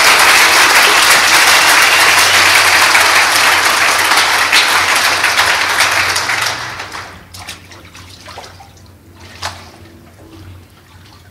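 Congregation applauding after a baptism, loud and even for about six seconds, then dying away. Quieter splashes and drips of baptistery water with a few small knocks follow.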